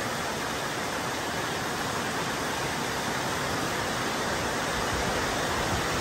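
Very heavy rain pouring down, a loud, steady hiss of noise with no letup.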